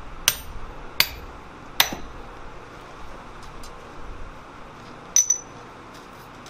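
Sledgehammer blows on a drift held in tongs in a red-hot swage block, dressing out a punched hole: three sharp ringing strikes about three-quarters of a second apart. A little after five seconds comes a single metallic clink.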